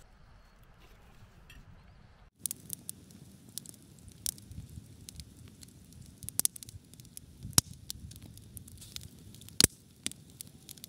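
Wood campfire of sticks and split logs burning, crackling with irregular sharp pops, the loudest pops coming in the second half. It begins abruptly after a couple of seconds of faint hiss.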